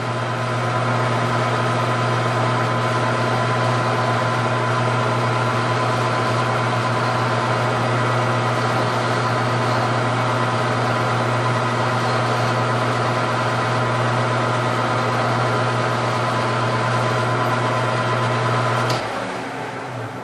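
Metal lathe running at a steady speed with a steady hum, chamfering the end of a Remington 700 bolt handle's turned shank ahead of threading. About a second before the end it is switched off with a click and winds down.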